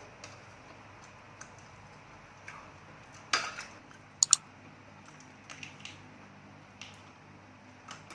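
Cutlery and dishes clinking and knocking in scattered short clicks, with a brief scrape about three seconds in and two sharp clinks just after.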